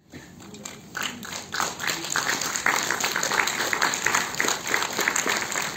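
Audience applauding: many hands clapping, starting about a second in and carrying on steadily.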